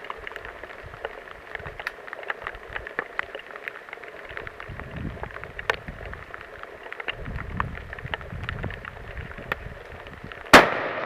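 A single loud, sharp hunting-rifle shot about ten and a half seconds in, with a short echoing tail. Before it, faint scattered ticks and some low wind rumble on the microphone.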